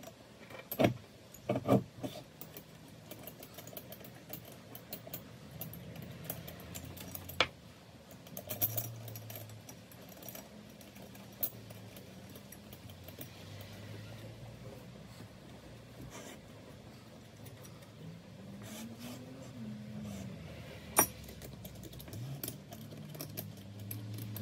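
A metal turbocharger being handled on a workbench: a few sharp metallic clicks and knocks, twice close together at the start, then singly a few seconds in and near the end, over a faint low hum.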